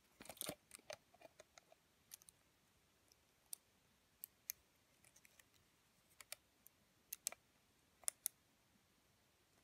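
Faint, scattered clicks and small taps from handling a partly disassembled camcorder, its plastic and metal housing parts knocking together, a short cluster right at the start and then single or paired ticks every second or so.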